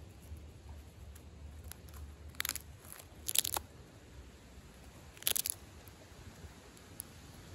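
Striped skunk chewing peanuts, with three loud crunches about two and a half, three and a half, and five seconds in, among fainter ticks.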